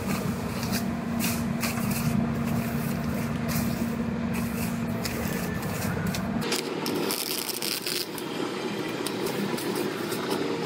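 Plastic masking sheeting crinkling and rustling as hands smooth and tuck it against a truck's bodywork, over a steady low hum that shifts to a higher one about six seconds in.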